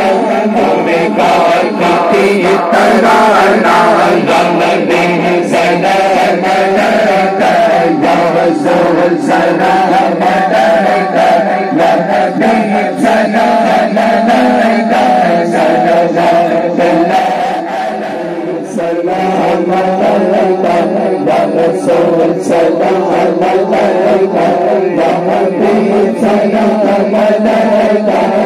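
Many voices chanting a devotional naat together in unison, over a steady run of sharp rhythmic strikes. The sound dips briefly about two-thirds of the way through.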